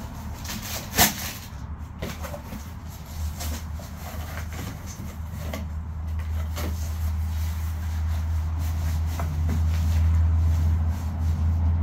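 Cardboard shipping box being opened by hand: tape peeled off and flaps pulled back and handled, with one sharp snap about a second in. Under it runs a low steady hum that grows louder.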